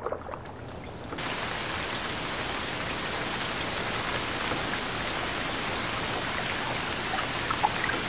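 Heavy rainforest downpour pelting flooded forest water, a steady hiss of rain on the water's surface that comes up to full strength about a second in.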